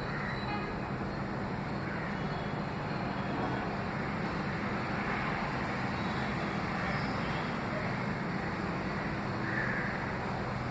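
Steady background noise like road traffic, with a crow cawing faintly now and then.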